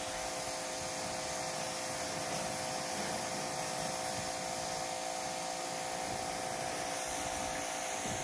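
Husqvarna 2000 PSI electric pressure washer running: a steady motor hum under the hiss of the high-pressure water jet spraying from the wand.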